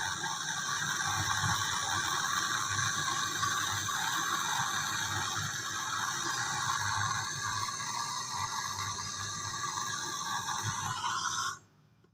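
A steady mechanical whirring rattle that cuts off suddenly near the end.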